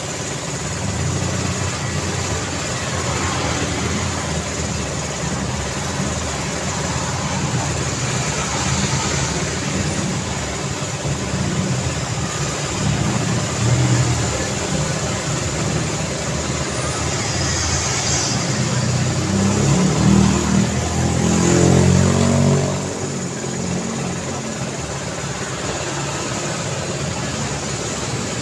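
Daytime road traffic: a steady mix of passing vehicle engines and tyre noise. About twenty seconds in, one vehicle's engine grows louder as it accelerates past, then falls away suddenly.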